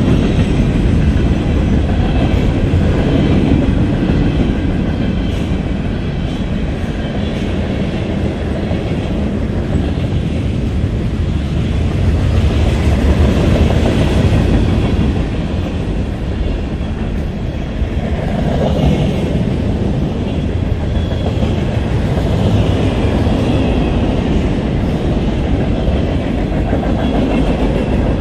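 Freight cars of a CSX manifest train rolling past: a steady, loud rumble of steel wheels on the rails.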